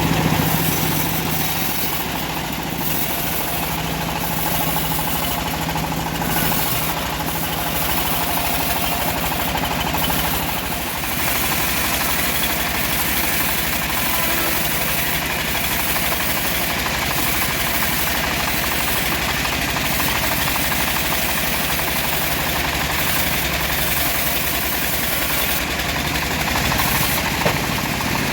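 Engine-driven homemade bandsaw mill running steadily: an even engine note under a continuous high hiss, with one short sharp tick near the end.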